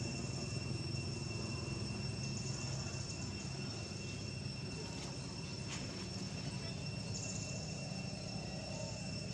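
Insects droning steadily in two high unbroken tones, with a higher buzz that comes and goes, over a low steady background rumble; a faint click or two about six seconds in.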